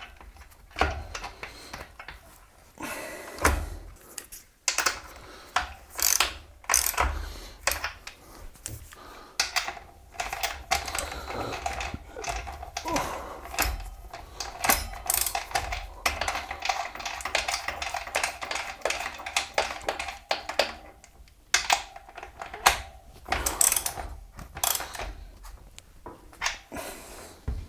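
Irregular mechanical clicking, ratcheting and knocks of hands and tools working on an e-bike's rear hub-motor wheel as it is put back in place. A steady hum runs through the middle of the stretch.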